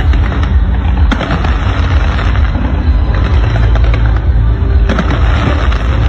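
Dense fireworks barrage: a continuous heavy booming rumble with crackle over it and sharp bangs standing out about a second in and again near five seconds, loud enough to overload the phone's microphone.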